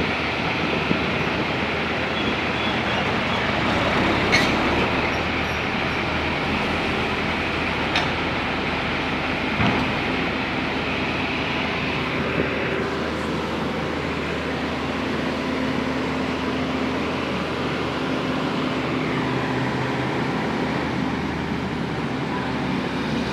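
Heavy construction machinery running steadily with a low diesel drone, and a few short sharp knocks.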